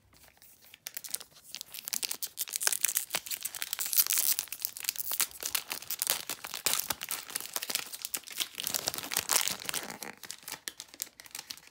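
Foil wrapper of a Magic: The Gathering Kaldheim set booster pack being torn open and crinkled by hand: a dense, continuous crackling that starts about a second in and eases off near the end.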